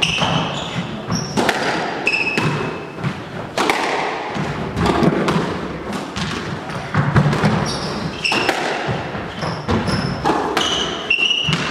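Squash rally: the ball struck by rackets and hitting the walls again and again, with shoes squeaking briefly on the wooden court floor between shots.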